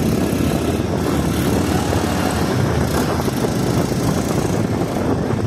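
Motorcycle running steadily while riding, with wind noise on the microphone.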